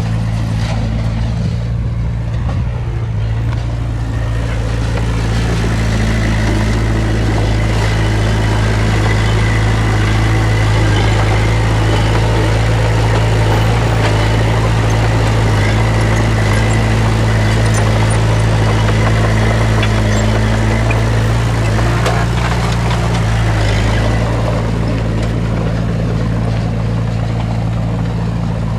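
Heavy earthmoving machine's diesel engine running steadily. It grows louder and noisier for most of the stretch, as if working under load, then eases back near the end.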